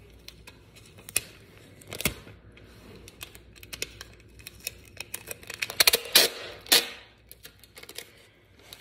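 Clear tape being pulled off a plastic tape dispenser and torn into pieces: an uneven run of sharp clicks and crackles, busiest about six to seven seconds in.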